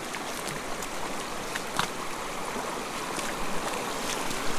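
A small creek running steadily, with brief sharp splashes at irregular moments as a hooked rainbow trout struggles at the surface of the pool.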